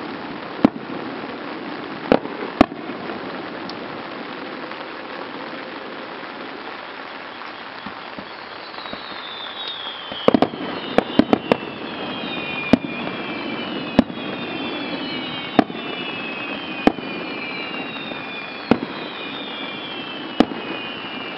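Aerial fireworks shells bursting one by one as sharp bangs, mostly a second or two apart, with a quick cluster of about five around the middle. From about halfway, several high whistles falling in pitch overlap one another.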